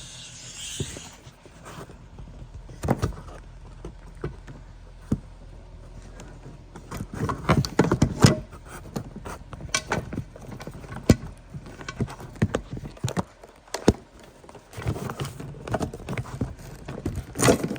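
Irregular knocks, clunks and rattles of things being handled and moved about, busiest in the second half.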